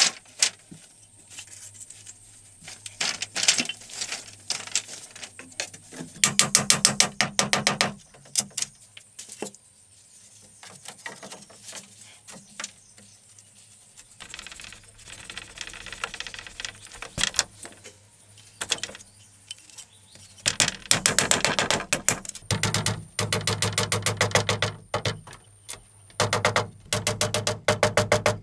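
Quick, rapid strokes of a hand-held lump rubbed against a bamboo slat wall. They come in bursts, a short one about six seconds in, another near the middle, and a long run through the last third, with one sharp click between.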